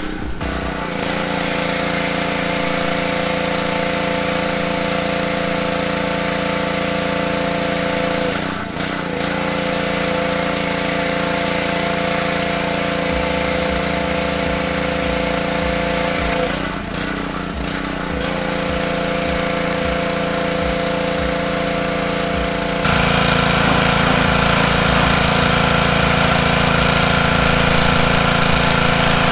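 Small gasoline engine of a pressure washer running steadily under load, with the hiss of the water spraying from the wand. The engine sound drops away briefly twice and gets louder during the last few seconds.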